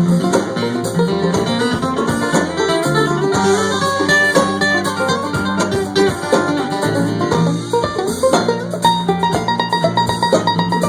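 Live bluegrass band playing an instrumental passage: quick plucked banjo, guitar and mandolin notes over a bass line that steps from note to note.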